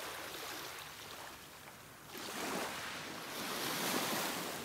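Rushing, surf-like noise that swells and fades twice: the first swell eases off about a second and a half in, and the second builds again to its loudest near the end.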